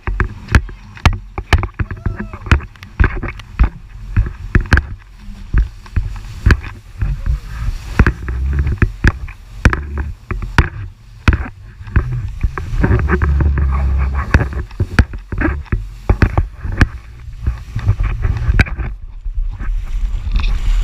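Yamaha WaveRunner jet ski running fast over choppy sea: a steady low rumble with many sharp, irregular knocks and splashes as the hull hops and slaps over the waves.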